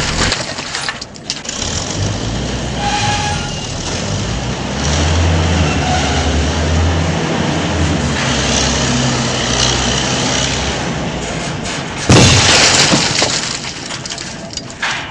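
An engine running with a steady low rumble whose pitch shifts now and then, and a sudden loud crash about twelve seconds in.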